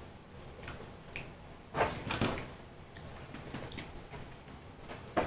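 Rustling and soft thumps as a small dog is handled and set down on a fabric couch, with a louder cluster of thumps about two seconds in and a sharp knock near the end.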